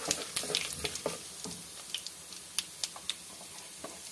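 Hot oil sizzling in a karahi as green chillies and seeds fry, with sharp crackles and pops and a wooden spoon stirring and scraping. The pops come thick in the first second and a half, then thin out to a few scattered ones over a steady sizzle.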